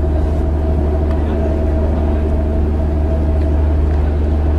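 Ship's engine machinery running steadily with a low, even hum and a faint steady higher tone.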